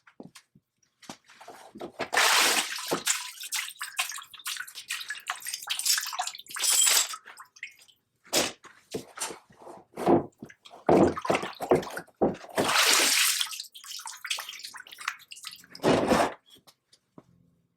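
Water rushing and splashing in several bursts a few seconds apart, with knocks and clunks from metal parts being handled, typical of parts being rinsed clean.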